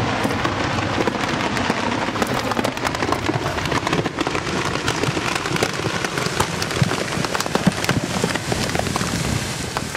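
Rock and debris from a large dynamite blast raining down on the trees and ground all around, a dense shower of many small impacts and clatters that thins out near the end.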